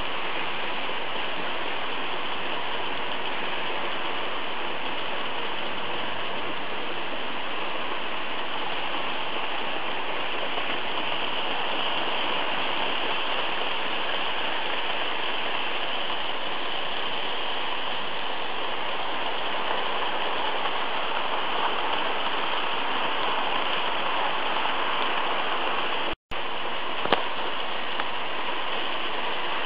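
Märklin model trains running on metal track: a steady, even rolling rattle and motor hum. The sound drops out for an instant about 26 seconds in, and a single click follows a second later.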